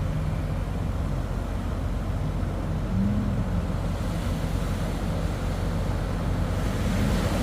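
Twin 90 hp Suzuki outboards on a 19 ft 6 catamaran ski-boat running hard as it powers out through the surf, their pitch rising and falling about three seconds in, over breaking waves and wind on the microphone.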